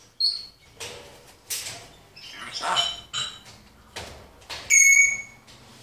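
Timneh grey parrot whistling and chattering: a short high whistle at the start, a few squeaky calls mixed with noisy chatter in the middle, and a loud, steady whistle near the end.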